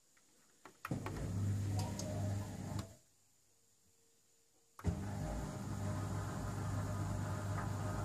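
A Miele dishwasher starts its Eco cycle. A few light clicks from the Start button are followed by a pump motor humming steadily for about two seconds. It stops, then starts again about two seconds later and keeps running.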